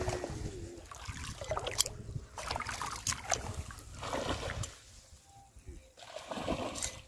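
Irregular splashing and clicking on the water as a topwater frog lure is twitched across shallow, weedy water, with a few sharp clicks.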